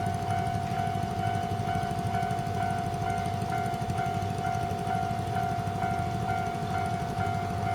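Japanese railway level crossing's electronic warning bell ringing on and on in a quick repeating chime, about three strokes a second, over a steady low rumble of rail or road traffic.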